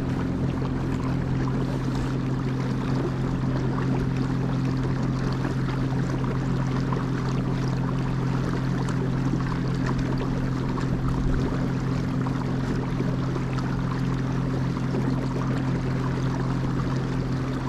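A motor running at a steady low hum while moving over water, with a constant rushing noise of water and air.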